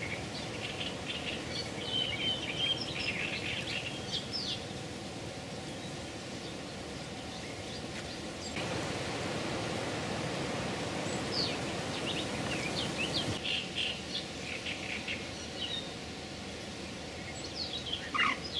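Small birds chirping, a few quick high calls at a time, in a cluster early on, another past the middle and again near the end, over steady low background noise that grows a little louder for several seconds in the middle.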